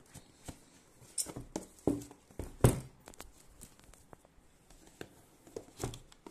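Cardboard smartphone box being handled: the inner box is slid out of its sleeve and set down, with scattered taps and knocks, the loudest about two and a half seconds in.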